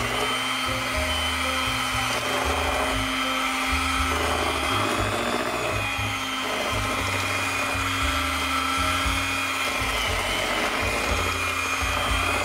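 Electric hand mixer running steadily on low speed, its beaters churning thick batter in a ceramic bowl, with background music over it.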